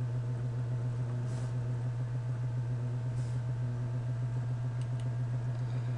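Steady low electrical hum in the recording, with two soft short hisses and a pair of faint clicks near the end.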